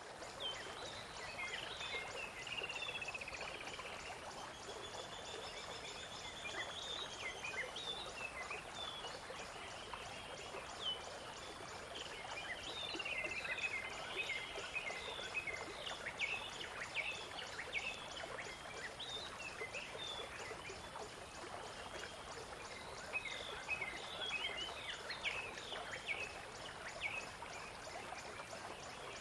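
Shallow river water running steadily, with gulls calling over it: many short cries and a few longer trilling calls.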